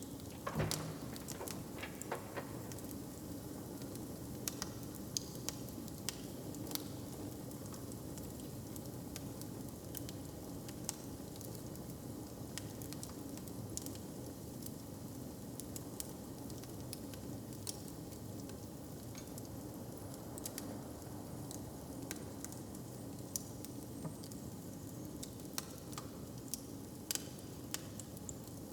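Fireplace fire crackling: scattered sharp pops and snaps over a steady hiss, with a louder pop about half a second in, over a low steady background hum.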